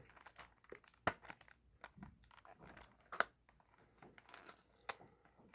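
Faint handling of packaging and small items: scattered light clicks and crinkling of plastic and cardboard.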